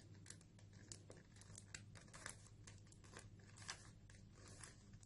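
Faint, quick plastic clicks and rasps of a 3x3x3 Rubik's cube's layers being turned in a rapid sequence of moves, a move algorithm being run to place an edge piece in the middle layer.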